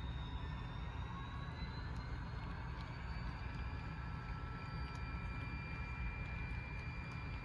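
HO scale model diesel locomotive's sound decoder playing a running diesel engine through its small speaker: a steady rumble with a whine that rises slightly in pitch between two and three seconds in, with faint scattered clicks.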